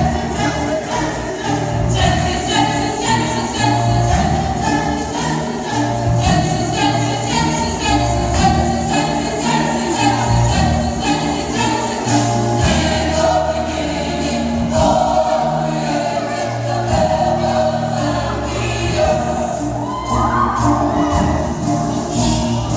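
Gospel choir singing with band accompaniment: held bass notes underneath and a steady, evenly ticking percussion beat.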